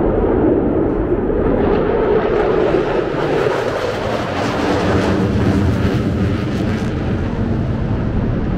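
Military aircraft flying past overhead: a loud rushing engine noise whose hiss builds to a peak about halfway through, then fades as it passes.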